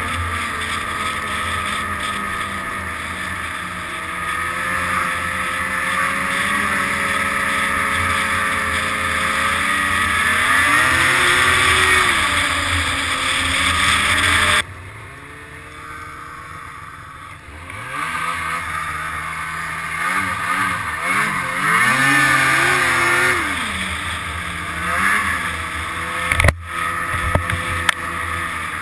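Snowmobile engine running under way, its pitch rising and falling with the throttle. About halfway through it drops suddenly to a lower level for about three seconds, then picks up again, and there is a sharp knock near the end.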